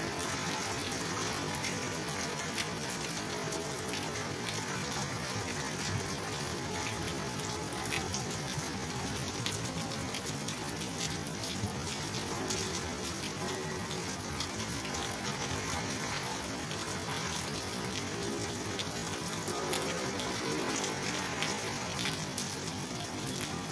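Steady rain falling, an even hiss with scattered sharp drip clicks.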